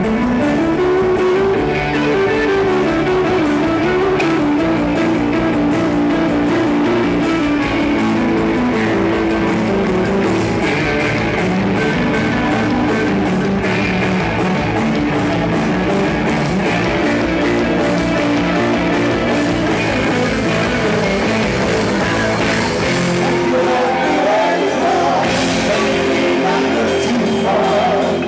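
Live rock band playing: electric guitar lines over drums, loud and continuous.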